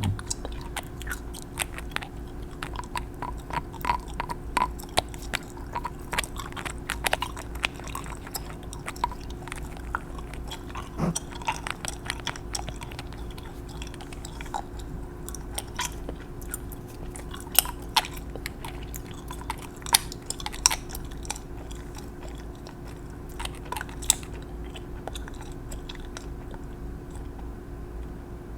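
Irregular small clicks and taps of fingernails and nail polish bottles being handled close to the microphone, with a few sharper clicks in the second half, over a steady low hum.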